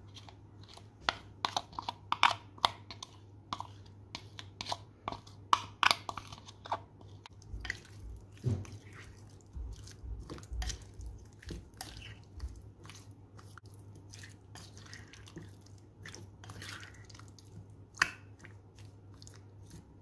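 A spoon clicking and scraping against a ceramic bowl while raw chicken pieces are stirred in a wet marinade, with squelching of the coated meat. The clicks come thick and fast for the first several seconds, then thin out, with one sharp knock near the end.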